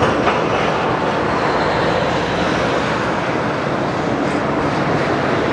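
Freight train of rail tank wagons rolling past: a steady rumble of wheels on the rails, with a short click just after the start.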